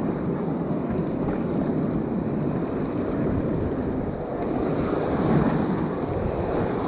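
Rushing river rapids and paddles pulling through the water from an inflatable raft, with wind buffeting the microphone. The rushing grows a little louder over the second half as the raft nears the white water.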